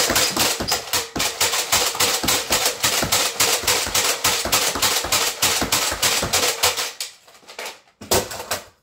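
Stock Nerf Alpha Trooper pump-action blaster pumped and fired rapidly. Its plastic slide clacks and darts fire in a fast, even clatter of several strokes a second, stopping about seven seconds in, with a few more clacks near the end.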